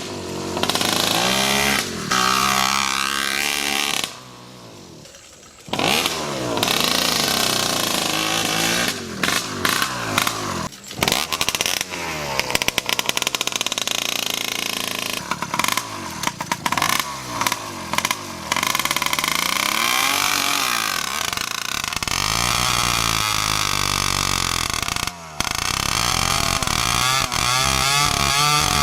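Motorized bicycle's small two-stroke 66cc Chinese kit engine revving up and down over and over as the bike is ridden, its pitch rising and falling with the throttle. The sound breaks off and jumps abruptly a few times, with a quieter stretch about four seconds in.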